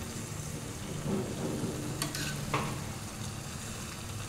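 Jalebis frying in hot ghee in a kadhai, a steady sizzle, as a slotted spoon turns them to crisp on both sides. Two light clicks come about two seconds in.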